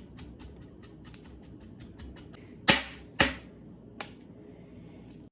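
Cilantro being cut in quick even clicks, about five a second, which stop about two and a half seconds in. Then come three loud sharp knocks, the last one softer.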